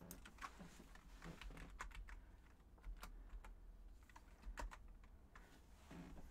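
Quiet typing on a computer keyboard: an irregular scatter of short key clicks.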